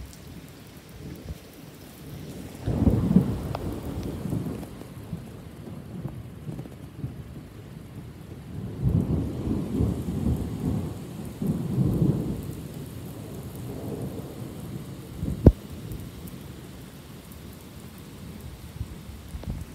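Steady heavy rain falling on pavement and grass in a thunderstorm, with thunder rumbling twice: a swell about three seconds in and a longer rolling rumble from about nine to thirteen seconds in. One short sharp knock sounds about fifteen seconds in.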